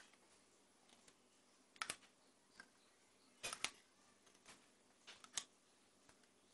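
A few light clinks and taps of a metal ladle against a glass mixing bowl and a metal muffin tin while batter is ladled, over near silence; the loudest is a short cluster about three and a half seconds in.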